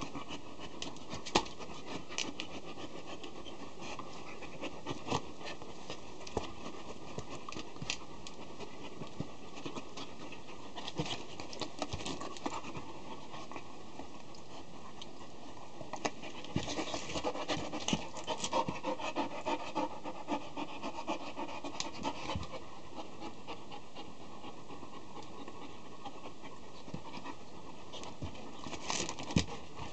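Young Akita dog panting while it mouths and gnaws at a person's hand, with scattered soft clicks and knocks. The panting and mouthing noise grows busier for several seconds past the middle.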